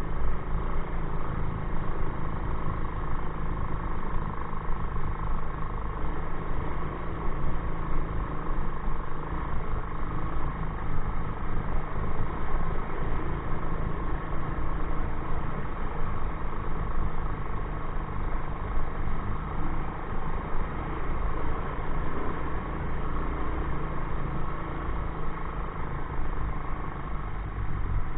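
ATV engine running steadily while the quad is ridden along.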